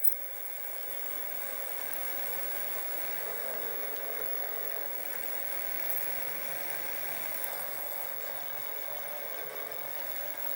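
Benchtop milling machine's spindle motor running steadily, with a faint even hum made of several steady tones.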